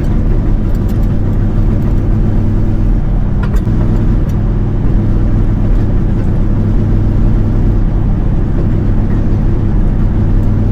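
A motor vehicle driving at a steady cruise: a low, even engine and road drone. Its pitch shifts slightly about three to five seconds in.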